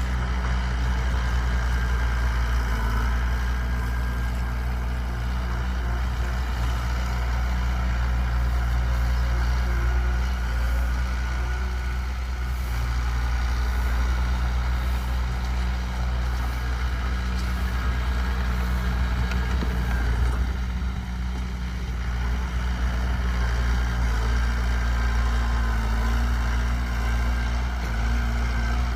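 Heavy diesel engine of earth-moving machinery running steadily, a low drone that dips briefly about two-thirds of the way through.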